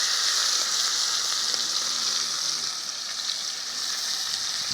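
Steady sizzle of food frying in hot oil in a pot.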